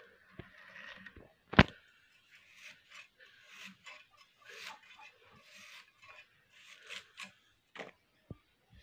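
Potato being cut into chunks on a boti, a curved iron floor blade, making short crisp cutting and scraping strokes, with one sharp knock about a second and a half in.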